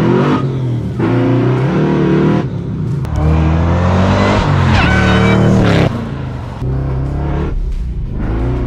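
Supercharged Chevrolet LS7 7.0-litre V8 accelerating hard through the gears. The revs climb, drop at gear changes about two and a half and six seconds in, then climb again, with a high whine rising alongside the engine around five seconds in.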